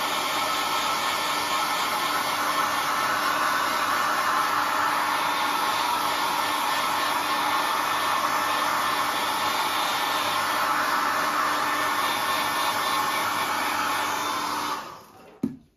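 Handheld hot-air blower running steadily, a continuous rush of air with a faint hum under it, drying a freshly applied paint wash. It is switched off near the end.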